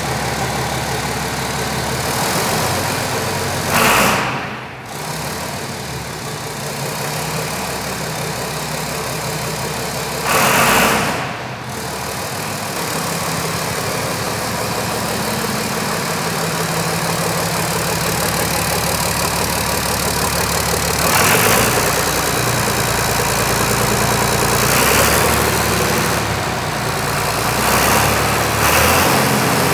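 Turbocharged John Deere 4230 tractor's 404-cubic-inch six-cylinder diesel running steadily at idle, with two short, louder bursts of noise about four and eleven seconds in.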